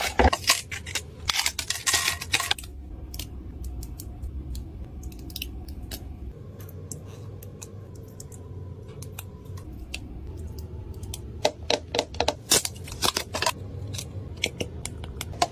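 Hands handling a press-on nail set's plastic tray and packaging: crinkling and sharp clicks for the first two and a half seconds, then a low steady hum with a few light ticks, and a quick run of plastic clicks near the end.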